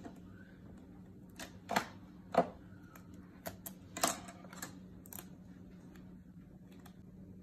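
Irregular sharp plastic clicks and knocks, eight or so, from the open printer being handled, over a steady low hum.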